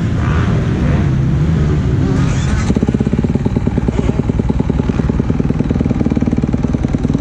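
Motocross bike engine running close by. About three seconds in it settles into an even, rapid putting beat.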